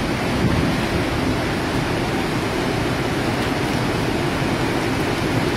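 Water pouring through a dam's open floodgates: a steady, unbroken rush of churning water.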